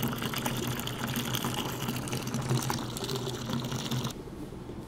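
Stream of wort running from the BrewZilla's stainless steel spigot into a glass carboy, filling the fermenter; the flow cuts off suddenly about four seconds in.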